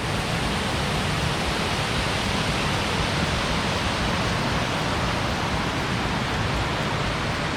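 Blue Hole Falls, a waterfall, pouring with a loud, steady rush of falling water.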